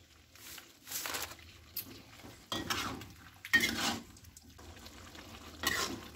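Metal spatula stirring and scraping stir-fried tempeh and bitter melon around a nonstick wok, in a handful of separate strokes about a second apart.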